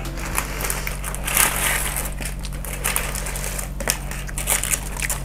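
Clear plastic bag of kerupuk crackers crinkling as the dry crackers are tipped out onto a wooden board, with many small crackling clicks.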